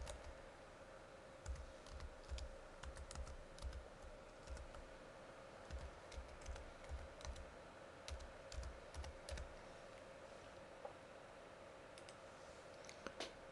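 Computer keyboard typing in quick, irregular runs for about eight seconds, then a pause and two sharp clicks near the end, under a faint steady hum.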